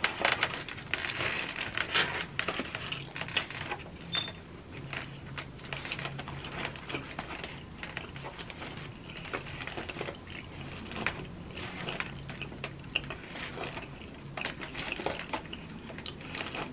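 Eating and food-handling noises: aluminium foil crinkling and a plastic spoon clicking against a foil-lined foam takeout tray, with many short irregular clicks and crackles.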